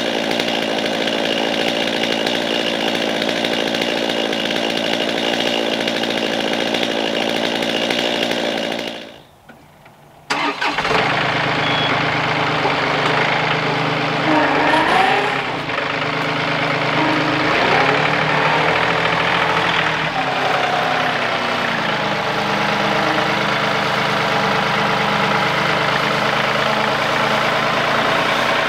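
A chainsaw runs steadily and cuts off about nine seconds in. After a second and a half of quiet, a compact tractor's diesel engine runs, its pitch rising and falling as it works.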